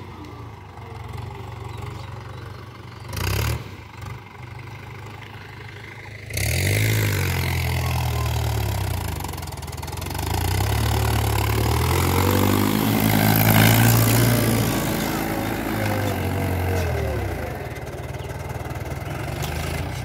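Mahindra tractor's diesel engine working under load as it pulls a cultivator through the soil, its note rising and falling. It gets abruptly louder about six seconds in.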